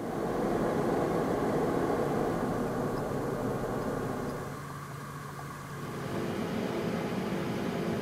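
Cooling fans of a 4U storage server running: a steady rushing fan noise with a few low humming tones. About four and a half seconds in, the noise drops to a quieter setting and comes back up a second or so later, as the recording switches between fan setups (stock fans at full speed, Noctua fans on a PWM profile, Noctua fans at full speed).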